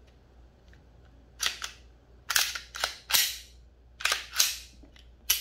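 Glock pistol with a Grey Ghost Precision slide being seated on the frame and cycled by hand: a series of sharp metallic clacks, mostly in close pairs, starting about a second and a half in. This is the function check after reassembling the slide.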